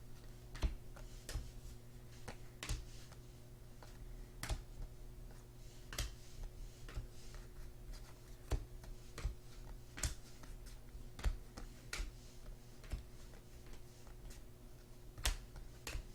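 Trading cards being handled and flipped onto a stack, giving sharp irregular clicks and taps about once a second over a steady low electrical hum.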